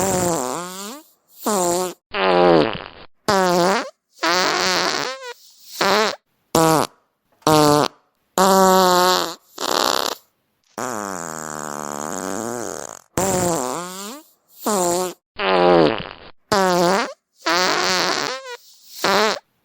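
A rapid series of about twenty fart sounds, one after another with short silences between. Most are under a second long with a wavering, bending pitch, and one long, drawn-out fart comes about halfway through.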